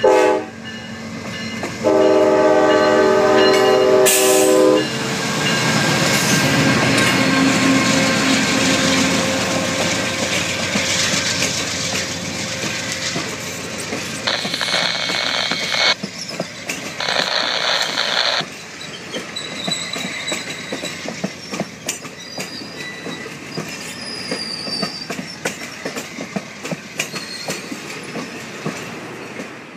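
Amtrak Capitol Corridor passenger train at a grade crossing: its diesel locomotive sounds a short horn blast, then a long one from about two to five seconds in. The train then rushes past, its double-deck cars clattering with wheels clicking over the rail joints, and two short high-pitched squeals come about halfway through.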